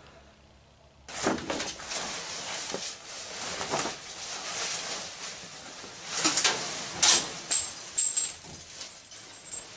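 Coverings and items being pulled off a stored cast-iron wood cook stove: steady rustling and shuffling with a few knocks, starting about a second in.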